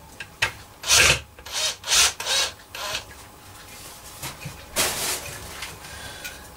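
A run of short, irregular scraping and rubbing noises, wood and tools being handled on a workbench, most of them in the first three seconds and two more a little after four seconds.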